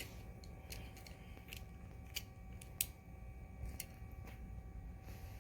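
Light scattered clicks and taps of a small plastic plow attachment being fitted onto a Hot Wheels die-cast toy car, about seven small clicks.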